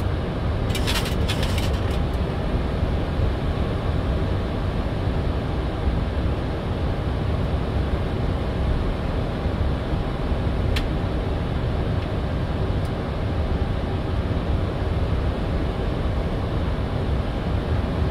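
Steady rushing cockpit noise of a Boeing 737-800 in flight, heaviest in the low end. About a second in comes a quick run of sharp clicks from the cockpit panel controls, and a single click comes later.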